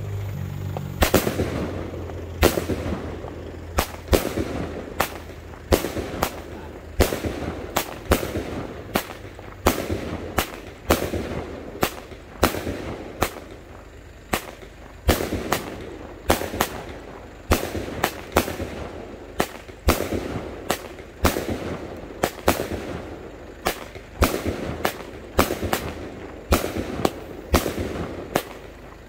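Diamond Fireworks 49-shot medium-calibre cake firing shot after shot, about one to two sharp reports a second, each followed by a short fading noisy tail.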